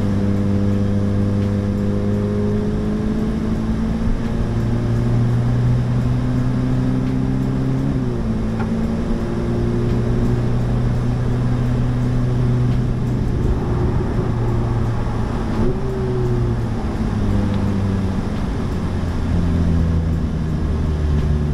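Ferrari Challenge race car engine heard from inside the car on track, running hard at a fairly steady pitch. The pitch steps up or down several times as gears change.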